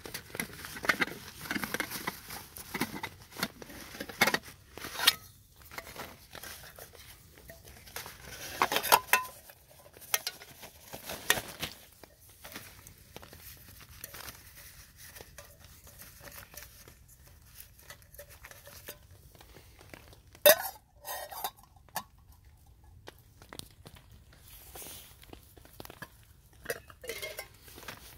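Camping cook kit being unpacked by hand: a stuff sack's fabric rustling, then a metal camping pot and a gas canister clinking and knocking as they are set out, in scattered handling noises with the loudest knock about twenty seconds in.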